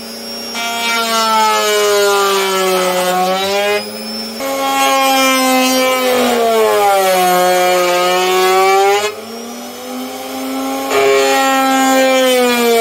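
Table-mounted wood router running and cutting birch plywood, rounding over the catapult frame's edges. Its whine sags in pitch and recovers again and again as the wood is pushed into the bit and the motor takes the load, with short lighter spells between passes.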